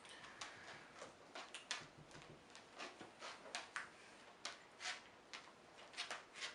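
Faint, irregular clicks and light scrapes of a spoon in an open tin can, a few every second.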